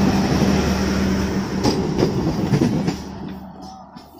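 Passenger train coaches rolling past close by: a loud rumble of wheels on the rails with a steady hum and a few sharp clacks over the rail joints. The noise dies away from about three seconds in as the last coach passes and pulls away.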